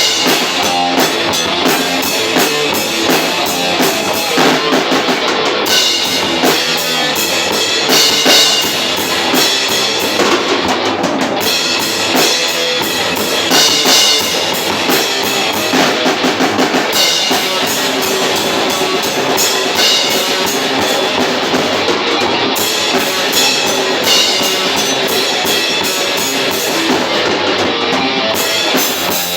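Metal band playing live: distorted electric guitars over bass and a busy drum kit with bass-drum hits, loud throughout.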